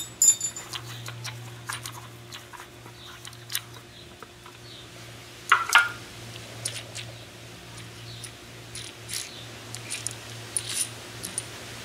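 Small metallic clicks and clinks of motorcycle swingarm spools and their threaded bolts being handled and lifted out of their tin case, with the loudest clink about five and a half seconds in.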